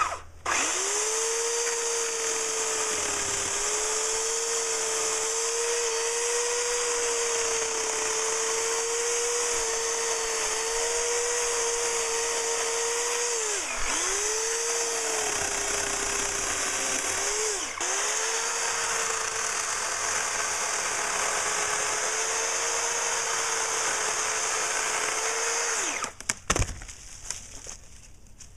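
Corded WORX electric chainsaw running steadily as it cuts into a small tree trunk, its motor pitch dipping briefly twice as the chain bogs in the wood. It switches off near the end, followed by a couple of sharp knocks.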